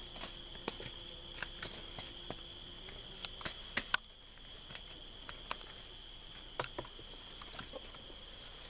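A steady, high insect trill runs throughout, with scattered sharp clicks and cracks from cassava stems being pulled and handled.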